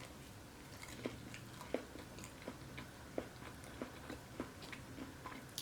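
Close-miked chewing of a Panda Express veggie spring roll, faint mouth clicks at a steady pace of about one every two-thirds of a second.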